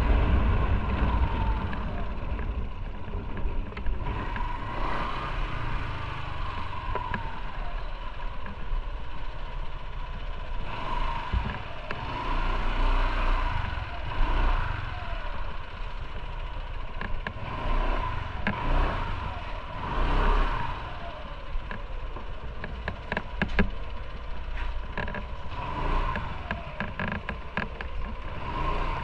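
Motorcycle engine running at low speed, with clattering clicks in the second half.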